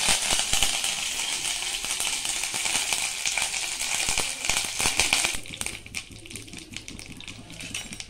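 Curry leaves and mustard seeds spluttering in hot oil in a kadai: dense crackling and popping over a sizzle, thinning out about five seconds in.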